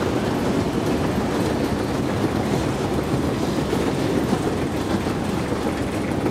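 Escalator running while being ridden: a steady mechanical running noise of the moving steps and drive, even throughout.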